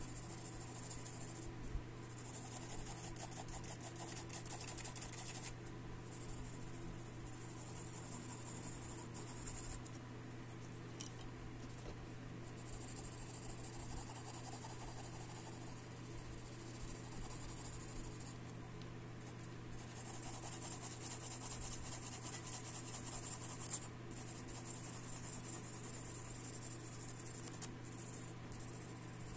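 Graphite pencil scratching across drawing paper in rapid shading strokes, stopping briefly now and then.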